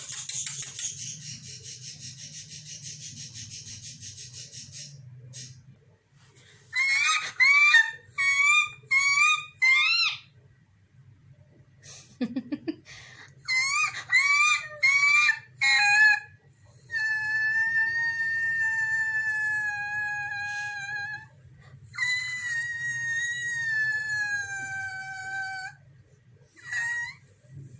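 Pet parrot calling: a harsh rasp for about five seconds, then bursts of short rising squawks, then two long whistled calls that fall slightly in pitch.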